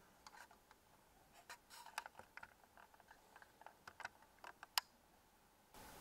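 Near silence: quiet room tone with scattered faint small clicks and ticks, and one sharper click a little before five seconds in.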